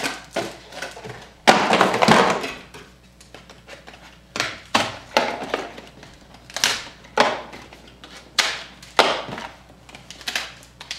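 Scissors snipping open trading-card packs: a string of sharp cuts, spaced about half a second to a second and a half apart, with handling of the packaging. A louder burst of rustling packaging comes about two seconds in.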